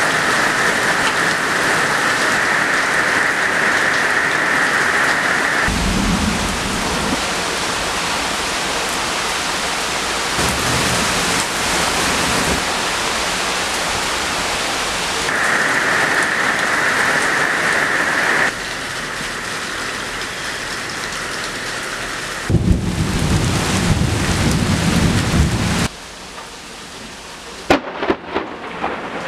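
Heavy rain and running water: a downspout gushing onto pavement and rain pouring on cars and pavement, with stretches of deep thunder rumble. The sound changes abruptly every few seconds and ends on quieter, scattered drops hitting pavement.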